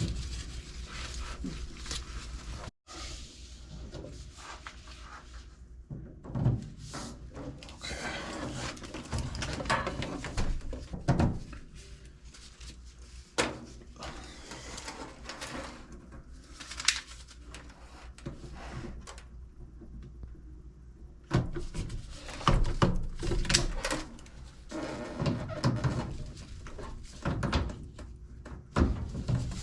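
Scattered clunks, taps and knocks of tools and pipe fittings being handled during plumbing work, with a brief dropout about three seconds in.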